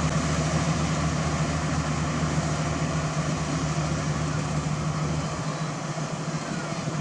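Engine of heavy road-construction machinery running steadily, a constant low hum under a broad mechanical noise.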